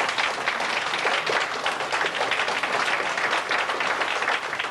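A large audience applauding, many people clapping together at a steady level.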